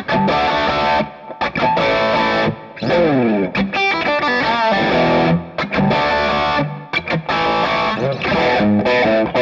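Electric guitar on its EMG 81 bridge pickup played through a Boss ST-2 Power Stack distortion pedal, its mode knob set halfway between crunch and drive. It plays a run of distorted chord riffs with sliding notes, in short phrases with brief breaks between them.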